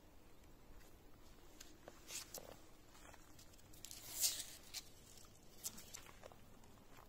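Faint, irregular footsteps crunching on a dry trail, about half a dozen steps, the loudest about four seconds in.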